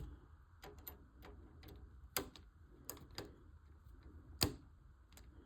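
Scattered light clicks and taps of model-kit frame parts and screws being handled, irregular, with two sharper clicks about two seconds in and about four and a half seconds in.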